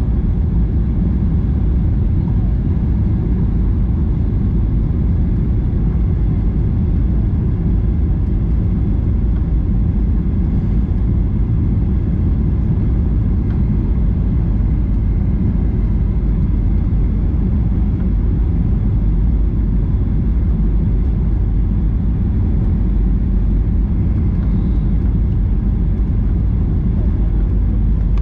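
Steady cabin noise of a Boeing 737-800 in flight, heard from a window seat: a loud, even rumble of its CFM56 jet engines and airflow, with faint steady whines above it.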